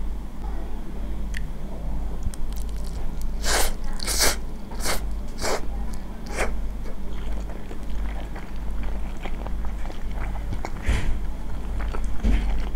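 Close-miked eating of Samyang carbonara instant noodles: a quick run of about five loud slurps a few seconds in, then wet chewing with small clicks. A steady low electrical hum runs underneath.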